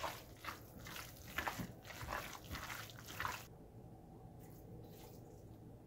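Wet squelching of gloved hands kneading raw minced beef with butter and spices in a glass bowl, a squish about three times a second. It stops suddenly about three and a half seconds in, leaving only faint room tone.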